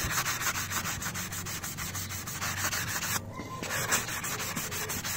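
Hand sanding along the edge of a repaired aluminium cylinder fin with a sanding sponge, in quick back-and-forth strokes of about six a second, with a brief pause a little past the middle. The sanding is tidying a lip left on the filled repair.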